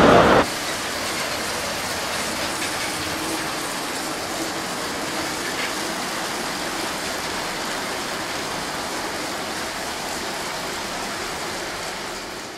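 LEGO trains running on plastic LEGO track: a steady hiss of wheels and motor with faint clicks, fading out at the end. It opens with about half a second of louder running from a large red garden-scale model train before the sound drops.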